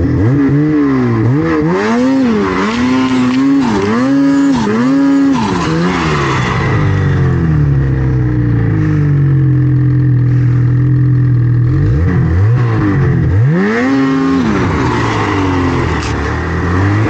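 Snowmobile engine revved in repeated bursts, its pitch climbing and dropping about once a second. It then holds a steady pitch for several seconds before more revs come after about twelve seconds.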